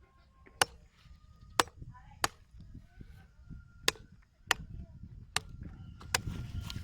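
Knife chopping on a cutting board: about seven sharp, irregularly spaced chops.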